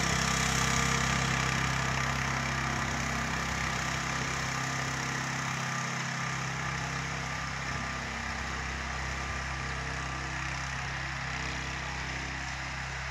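Engine of a homemade articulated mini tractor running steadily as it clears snow, growing slightly fainter as it drives away.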